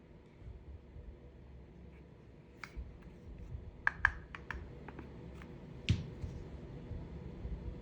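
A run of short, sharp clicks and clacks from an airsoft gas pistol being handled: a single click, then a quick cluster of several, and one louder clack near the end.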